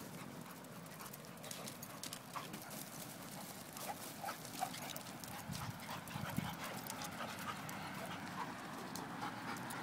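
Akita puppy and small Chihuahua-type dog playing on wood-chip mulch: many quick paw steps crunching and scuffling in the chips, with a few short, high dog sounds.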